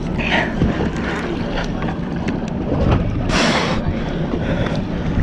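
Wind buffeting the microphone at sea, a heavy low rumble, with scattered light clicks from a big conventional fishing reel being cranked against a heavy fish. A brief loud hiss comes about three and a half seconds in.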